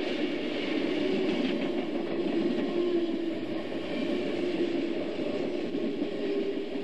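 HO scale model passenger train rolling past: a steady whine from the locomotive's electric motor over the running noise of small metal wheels on the track.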